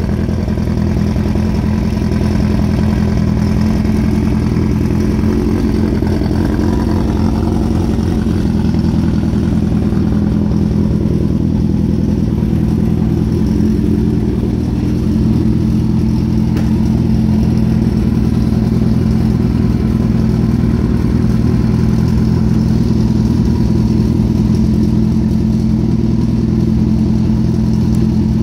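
Honda CB550F's air-cooled inline four-cylinder engine idling steadily, an even low running sound with no revs.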